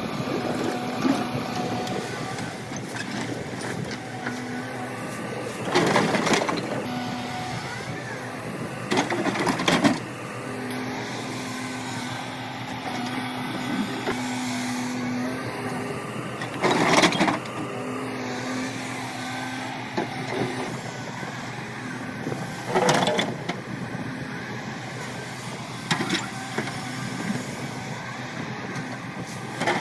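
Excavator running steadily, broken by about six loud, short bursts a few seconds apart as the bucket digs into and scrapes rock.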